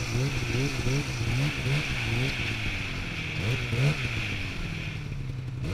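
Polaris Switchback Pro-R snowmobile's two-stroke engine running at low revs. Its pitch wavers up and down several times a second at first, then holds steadier with a couple of short revs a little past halfway.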